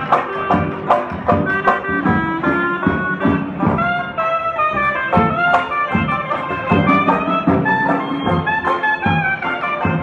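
Live traditional hot-jazz band: a clarinet plays a wavering lead melody over strummed banjos, sousaphone and drums keeping a steady beat.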